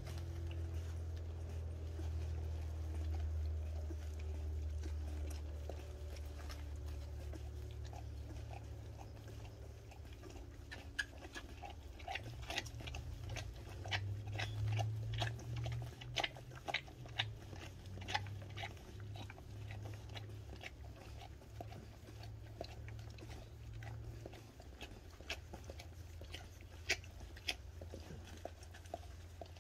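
Golden retriever mother licking her two-week-old nursing puppies: wet, irregular licking and smacking clicks, a few a second, starting about a third of the way in. A steady low hum runs underneath.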